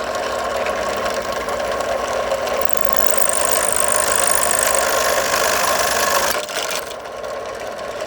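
Drill press running with a wood bead-maker bit cutting into a wooden stick, a steady loud machine noise with a thin high whine for a couple of seconds in the middle. About six seconds in the cutting noise drops off abruptly and the press keeps running more quietly; the bead-maker bit breaks during this cut.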